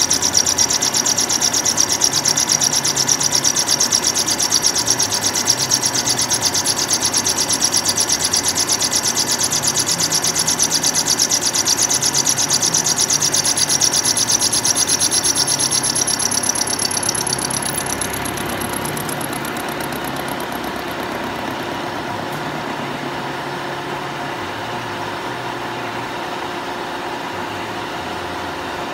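Milling cutter taking a heavy roughing cut in Ampco 18 bronze: a fast, even grinding of the cutter's teeth biting the metal, with a high ringing whine over it. About eighteen seconds in, the whine fades and the cut goes quieter and steadier.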